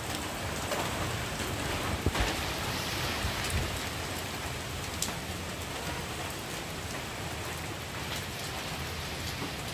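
Steady rain pouring down, an even hiss with a few sharper drop hits.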